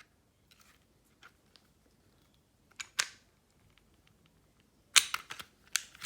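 Metal parts of a pistol clicking as it is field-stripped and the slide comes off the frame: a sharp click about three seconds in, then a quick cluster of clicks about five seconds in.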